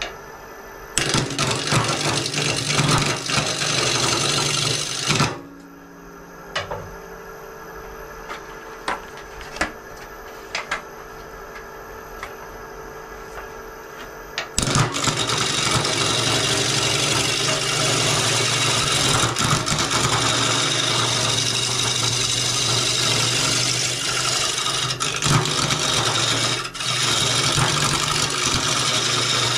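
Wood lathe running with a steady motor hum while a gouge cuts a spinning cedar bowl blank. About four seconds of scraping cut come near the start, then a stretch of just the hum with a few light ticks, and continuous cutting from about halfway through.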